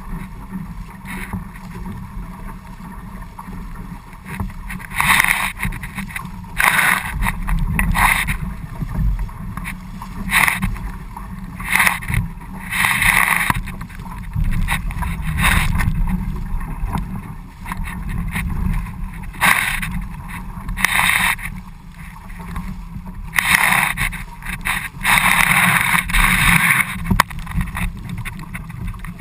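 Water rushing and splashing along a small sailing dinghy's hull as it sails through choppy sea, with hissing bursts of spray every second or two over a steady low rumble of wind on the microphone.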